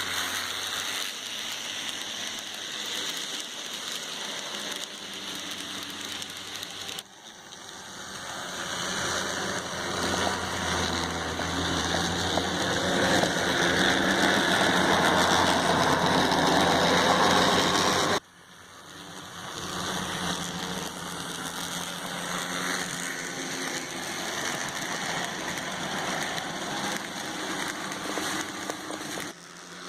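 N scale model train running on its track: the small electric motor and wheels on the rails make a steady mechanical whir. From about a quarter of the way in it grows steadily louder, as if the train is coming closer, until it cuts off abruptly a little past halfway, then carries on at a lower level.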